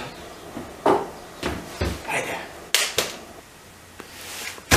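A handful of short knocks and thumps at uneven intervals, the sharpest a little under three seconds in.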